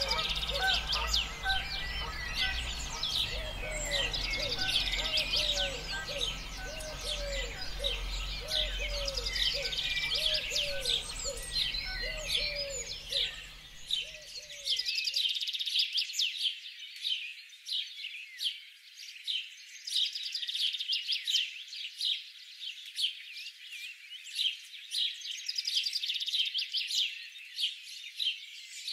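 Many small birds chirping and twittering in a dense, continuous chorus. During the first half a lower, falling call repeats about every 0.7 s over a low rumble, and both stop abruptly about halfway through while the chirping carries on.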